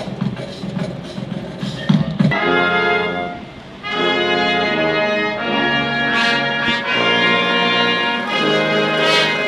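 Brass ensemble of trumpets and trombones playing held chords. It comes in about two seconds in over a low rumble, drops out briefly, then carries on.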